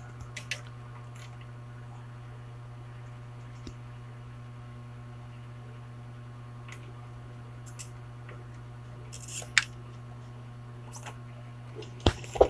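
A soldering iron desoldering an electrolytic capacitor from a CRT TV circuit board, heard as small clicks over a steady low hum. There is a sharp click about nine and a half seconds in and two more near the end.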